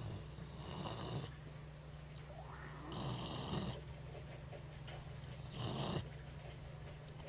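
A bulldog-type dog making three short, breathy snorts a few seconds apart.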